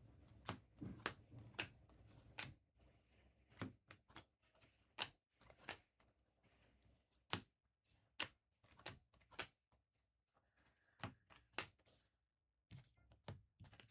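Faint, irregular clicks and taps of trading cards being flipped through and set down on a table, a couple of dozen scattered over the stretch with short gaps.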